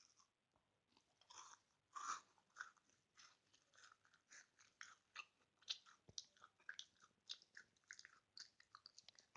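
Quiet close-up chewing of crunchy food: small irregular crunches and clicks, a few each second.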